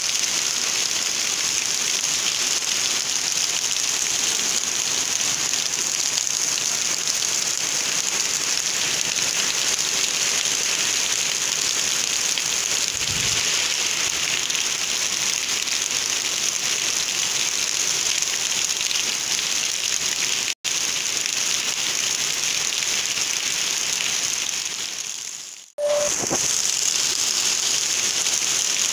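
Heavy rain pouring down in a steady, even hiss. It cuts out suddenly for an instant about twenty seconds in, and again about twenty-five seconds in it fades away and abruptly comes back.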